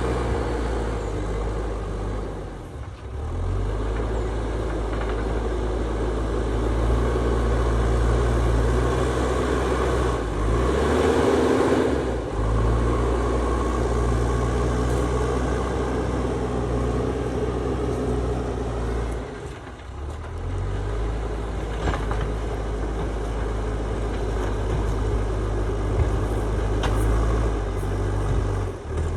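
A JCB backhoe loader's diesel engine runs steadily under working load. It dips briefly about three seconds in and again near twenty seconds, and works harder and louder for a couple of seconds around the middle.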